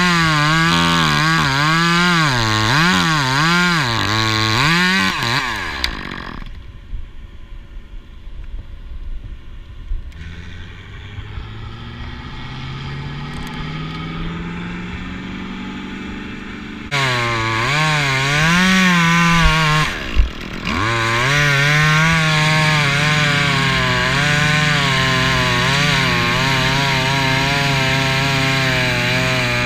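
Top-handle chainsaw cutting Siberian elm up in the tree: its pitch rises and falls under load for the first five seconds, then it drops away for about ten seconds. It revs up again at about seventeen seconds, dips briefly with a knock near twenty seconds, and then runs steadily at high speed through the cut.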